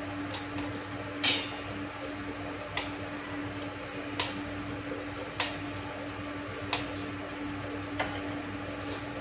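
Knife cutting paneer on a glass plate, the blade clicking sharply against the glass six times at fairly even intervals of about a second and a half, over a steady hum.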